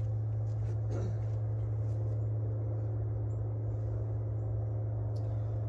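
A steady low hum, with faint footsteps and a few light clicks as someone moves about.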